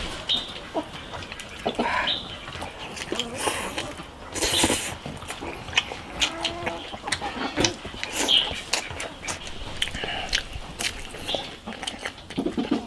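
Close, wet chewing and lip-smacking of a mouthful of braised pork belly wrapped in lettuce, with irregular smacks and crunches.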